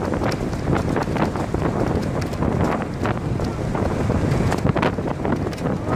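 Wind buffeting the microphone in irregular gusts at the open window of a moving bus, over the bus's steady road and engine noise.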